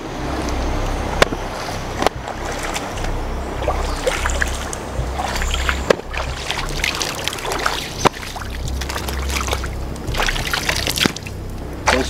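A shallow river trickling, with scattered footsteps crunching on dry leaves and gravel and a low steady rumble underneath.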